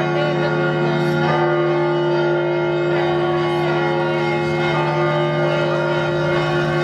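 Russian church bells ringing: several bells sound together in long overlapping tones over a steady low hum, with fresh strikes about a second in and again around three seconds in.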